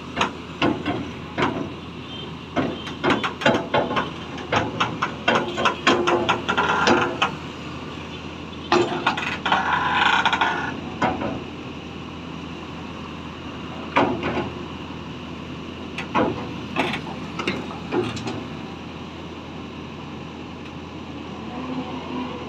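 JCB backhoe loader's diesel engine running steadily under repeated metallic clanks and rattles from the boom and lifting gear. The clanks come thick and fast through the first half, then only every second or two.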